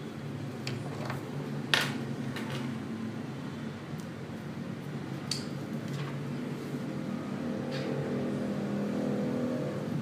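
Scattered small clicks and taps of repair tools working the plastic casing and parts of an Asus Zenfone 5 during disassembly, the sharpest about two seconds in. Under them is a steady low hum.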